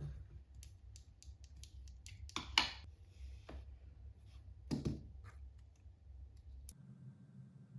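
Quiet handling sounds at a desk: scattered light clicks and ticks, with two brief rustles about two and a half seconds and five seconds in, over a low steady hum.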